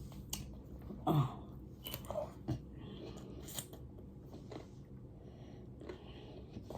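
Chewing a mouthful of basmati rice and cucumber with sauce: irregular soft crunches and wet mouth clicks.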